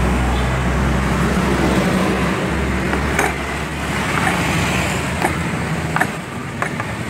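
Road traffic in the background: a motor vehicle's low engine drone that fades away about two and a half seconds in, then a few light clicks.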